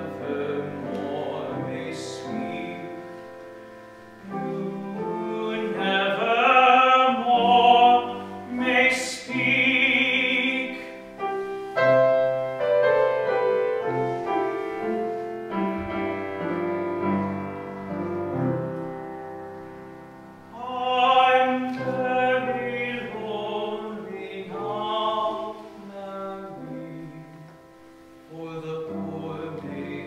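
A man singing an Irish ballad in classical, operatic style with a wide vibrato, accompanied by piano. The voice swells in long held phrases, and near the end it drops back to the piano.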